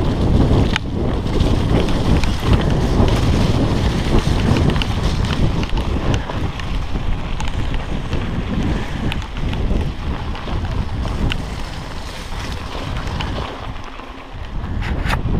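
Heavy wind buffeting on a chest-mounted GoPro's microphone as a mountain bike rides down a wet dirt trail, with scattered sharp clicks and rattles from the bike over the rough ground. The rush eases briefly near the end, then picks up again.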